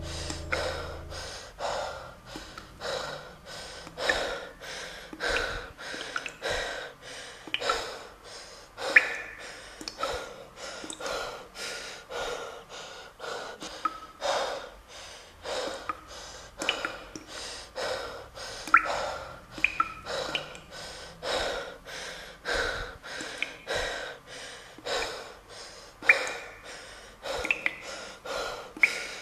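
A person panting hard: quick, rhythmic in-and-out breaths, about two a second, with an occasional gasping edge.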